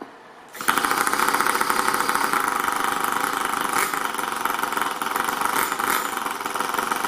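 Toyan FS-L200 two-cylinder four-stroke nitro model engine catching suddenly on its push-button starter about half a second in, then idling steadily with no exhaust system fitted.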